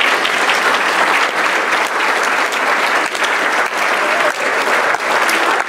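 Audience applauding: many people clapping together in a steady, dense patter with no breaks.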